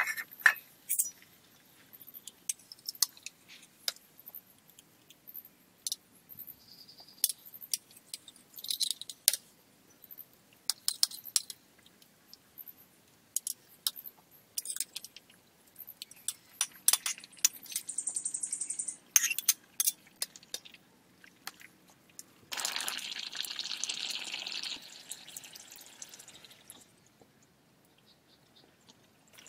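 Scattered clinks and taps of utensils against a two-handled metal cooking pot and a ceramic plate while cooking fish and green banana curry, with a few seconds of pouring liquid about 22 seconds in.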